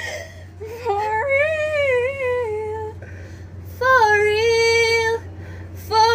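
A woman singing solo without accompaniment: two long held notes, the first wavering in pitch and the second steady, with a third note starting near the end.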